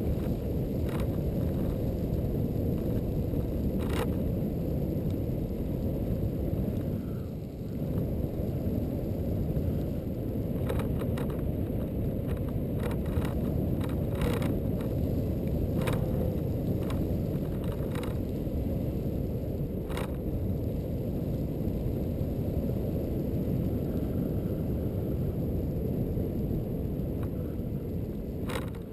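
Steady low rumble of a Xiaomi M365 electric scooter ride: wind on the microphone and the tyres rolling over pavement, with sharp clicks and knocks now and then as it goes over bumps.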